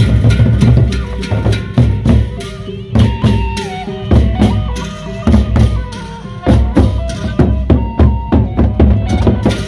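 Gendang beleq, the Sasak ensemble of large double-headed barrel drums, playing on the march: rapid, uneven drum strokes over a held tone and a wavering melody line.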